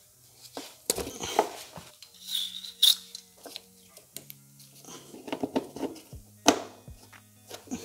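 Gloved hands handling a wiring harness and its plastic connector at a parking sensor: scattered rustles, taps and small clicks, with one sharp click about six and a half seconds in.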